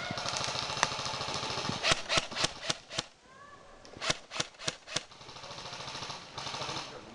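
Airsoft guns firing. A rapid full-auto rattle comes first, then two quick strings of about five sharp shots each, roughly four a second, with a short pause between them.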